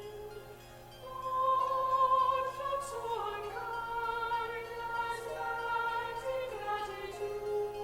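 Choir singing with a piano playing the second soprano line over the recording; held notes step from one to the next, and the sound swells louder about a second in after a quieter moment.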